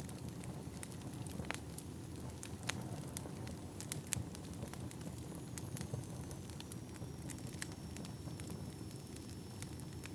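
Wood fire burning: a steady low rumble with irregular sharp crackles and pops. A faint, thin high whistle comes in about halfway through.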